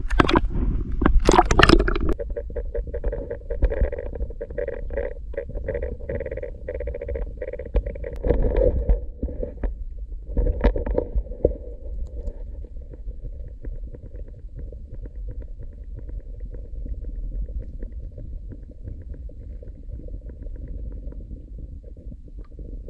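Muffled underwater sound of pond water around a submerged camera: two loud splashes in the first two seconds, then a steady low rumble and sloshing with all the higher sounds cut off.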